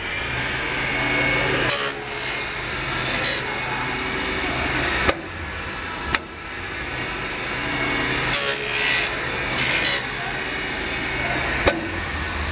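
CNC channel letter bending machine at work: a steady motor hum, broken by four short scraping bursts as the metal strip is worked through the bending head, and three sharp clicks.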